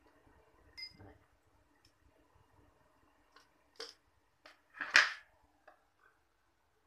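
Scattered clicks and taps of kitchen things being handled: a spoon clinking against a drinking glass about a second in, then a few light taps and a louder clatter about five seconds in as the stainless electric kettle is lifted off its base.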